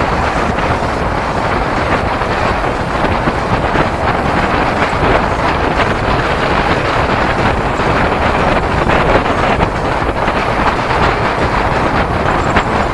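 Loud, steady wind rush on the microphone of a camera carried on a moving bicycle.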